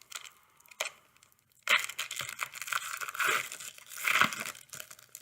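Foil trading-card pack wrapper crinkling and tearing, starting sharply just under two seconds in and going on for about three seconds.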